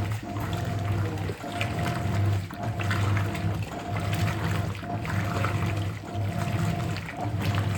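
Hoover 800RL top-loading washing machine agitating a load in water. The motor hum and sloshing come in fast, even strokes about every second and a bit, with only a brief dip between strokes.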